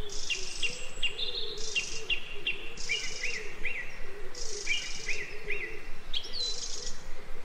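Woodland birds singing: several birds giving short repeated chirps and whistled notes, with bursts of high, thin trilling between them.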